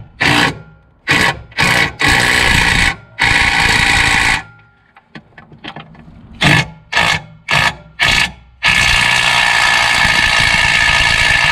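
DeWalt cordless driver spinning a socket on a long extension, tightening the bolts of an engine mounting plate. It runs in several short bursts and runs of about a second, then one long run of about three seconds near the end as the bolt is torqued down.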